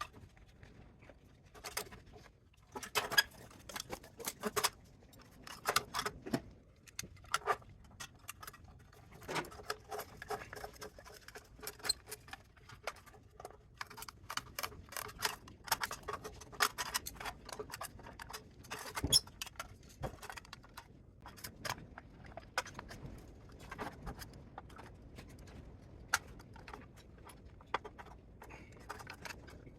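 Irregular clinks, clicks and scrapes of small metal parts and hand tools being handled during a teardown, with a few sharper knocks.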